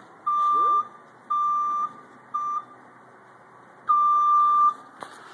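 Vehicle backup alarm beeper, wired to a truck's brake lights, sounding each time the brake is pressed: three short beeps of uneven length in the first three seconds, then a longer one about four seconds in. A single knock comes near the end.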